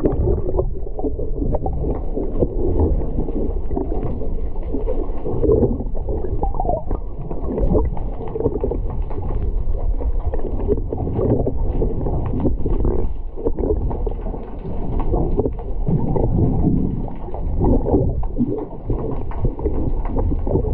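Water heard through a submerged action camera: a muffled low rumble of moving water with bubbling and faint ticks.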